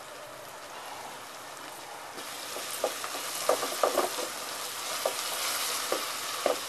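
Chopped onion, tomato, green chilli and garlic sizzling in hot oil in a pot, the sizzle growing louder about two seconds in as a wooden spatula starts stirring, knocking and scraping against the pot several times. The onion is frying for a biryani base and is nearly done.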